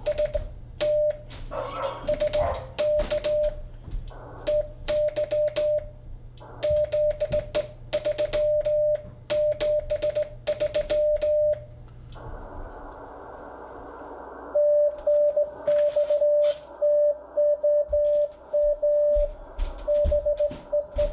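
Hand-sent Morse code from a straight key: a single CW tone of about 600 Hz keyed on and off in dots and dashes through an Icom IC-7300, with sharp mechanical clicks from the key. About twelve seconds in the tone gives way to a couple of seconds of receiver hiss, and then keyed Morse code comes back over the radio.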